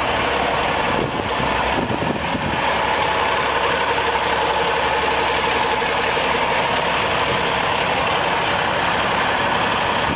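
Cummins LTA10 diesel engine of a 1989 Autocar ACL64 truck idling steadily.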